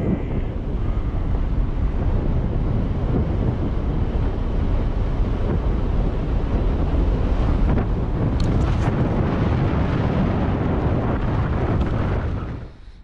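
Wind rushing over the camera microphone while riding an electric scooter at about 45 km/h. The steady rush is heaviest in the low end and drops away sharply near the end.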